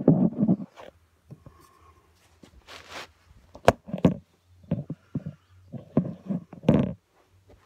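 Close, irregular breaths and sighs of a person moving slowly on the floor, with soft rustling and a sharp click about three and a half seconds in.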